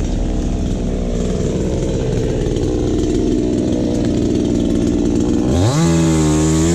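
Petrol chainsaw running steadily, then revved sharply to a higher, held pitch about five and a half seconds in.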